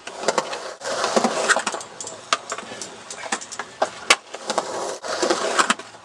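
Skateboard wheels rolling on concrete ramps, with many sharp clacks of the board and trucks striking the coping and the concrete.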